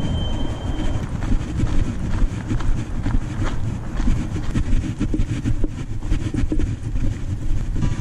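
Wind rumbling against a body-worn camera's microphone while someone walks along a gravel path, with irregular footstep crunches through it.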